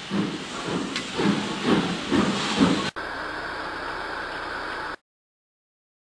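Model railway train running past on the track, a rumble that pulses about twice a second. After a cut about three seconds in it gives way to a steady hiss, and the sound drops out to silence about five seconds in.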